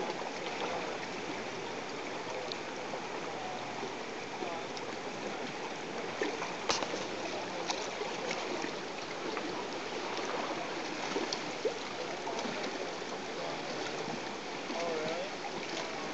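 Steady rush of the Kenai River's fast current, with a few sharp clicks; the loudest click comes about seven seconds in.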